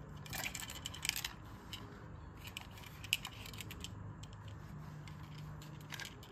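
Small hard clicks and rattles of a metal cork-firing toy pistol being handled and its hammer and trigger worked, in short clusters with single clicks between.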